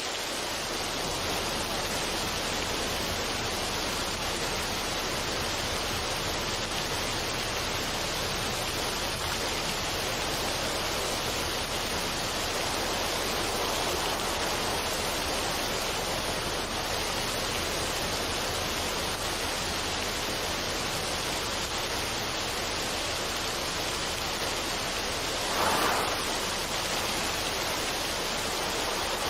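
Steady, even rushing noise with no tune or rhythm, swelling briefly louder near the end.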